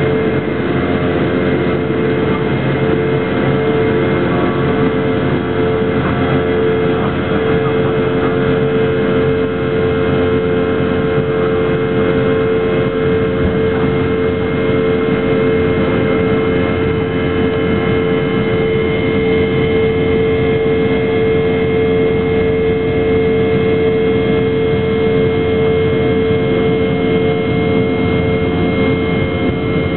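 Jet airliner's engines at low taxi power, heard from inside the cabin: a steady drone with a constant whining tone that neither rises nor falls.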